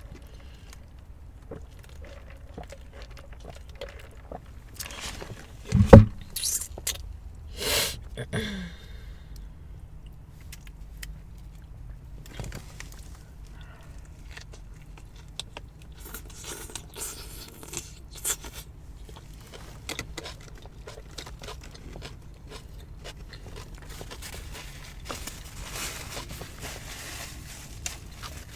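Close-up eating sounds of fast food: chewing and crunching, with the scrape and rustle of wrappers and packaging. A sudden, very loud low sound comes about six seconds in, and a shorter loud one about two seconds later.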